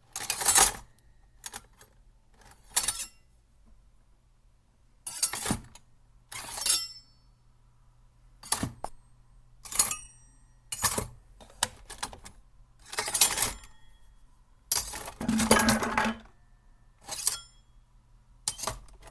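Kitchen knives clinking and scraping against one another: about a dozen separate metal strokes, a few of them drawn out into longer scrapes and some leaving a short high ring.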